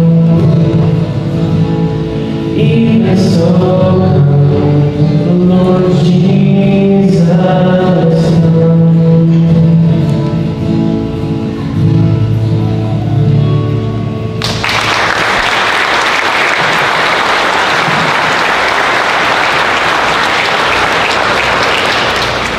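Singing that ends about two-thirds of the way through, followed at once by an audience applauding steadily.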